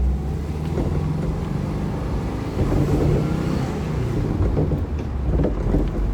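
2002 Subaru WRX's turbocharged flat-four engine running while the car drives, heard from inside the cabin with road noise; it gets a little louder about two and a half seconds in.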